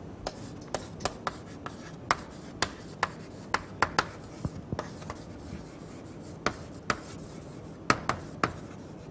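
Chalk writing on a blackboard: sharp, irregular taps and short scrapes as each letter is stroked on, a few per second with a brief pause midway.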